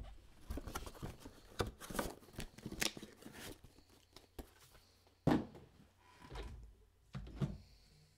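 Plastic trading-card cases and packaging being handled on a table: scattered small clicks, knocks and rustling, with a louder knock about five seconds in.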